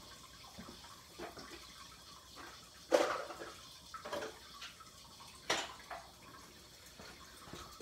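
Water running and trickling out of a water heater tank, with a few sharp knocks and clicks from tool work, the loudest about three seconds in.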